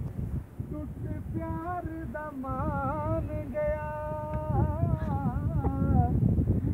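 A single voice singing a long, wavering, ornamented melody line, starting about a second in and stopping near the end, over wind rumble on the microphone.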